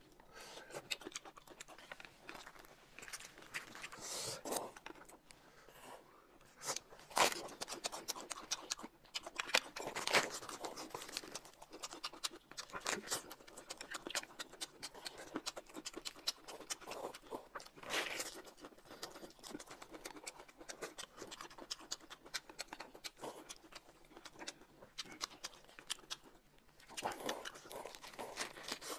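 Close-up eating sounds: irregular crunching and chewing of lettuce wraps and other food, with light clicks of chopsticks against bowls and plates.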